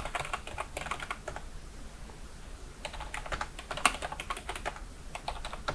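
Typing on a computer keyboard: quick runs of keystrokes in two bursts, one at the start and another about three seconds in.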